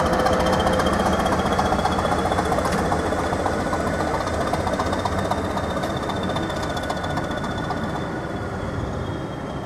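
Hastings Class 202 diesel-electric multiple unit pulling away under power, its English Electric diesel engine running with a high whine above it, fading gradually as the train draws off.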